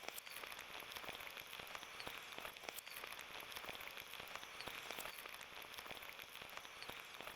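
Faint running stream water: a steady hiss with many small irregular ticks and pops.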